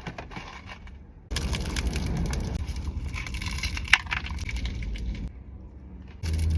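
Close-miked crunching of pistachio chocolate being bitten and chewed: a dense crackle in two loud stretches that cut in abruptly, with one sharp snap about four seconds in.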